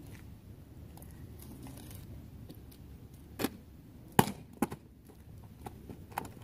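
A few sharp knocks from a thrown plastic water bottle hitting and bouncing, the loudest a little after four seconds in, with lighter taps near the end.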